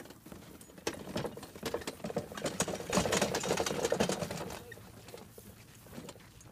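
Dog-drawn poly garden dump cart rattling as it rolls over dry, stubbly ground, mixed with crunching footsteps in dry grass. Rapid dense crackle and clatter, busiest and loudest about three to four seconds in, then thinning out.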